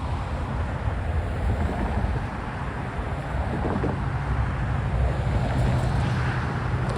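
Intermodal stack train rolling past: a steady low rumble of freight car wheels on the rails, with wind buffeting the microphone and a steady low hum joining about halfway through.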